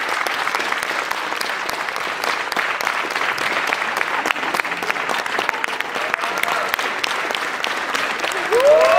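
Theatre audience applauding, a steady dense patter of many hands clapping. Near the end, a louder pitched sound sliding up in pitch comes in over the clapping.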